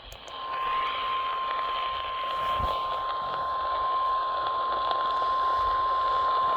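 Emergency Alert System warning alarm tone, the single-tone NOAA Weather Radio attention signal. One long, steady high beep sounds over radio static hiss and announces a severe thunderstorm warning.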